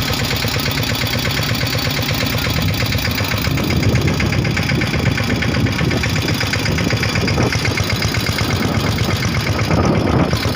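Tractor diesel engine running steadily under a steady load, a little louder from about three and a half seconds in.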